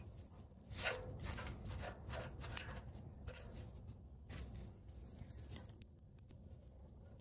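Faint, irregular crackling and rustling of paper burning in a small metal brazier, thickest from about one to two and a half seconds in and thinning out after, over a low steady rumble.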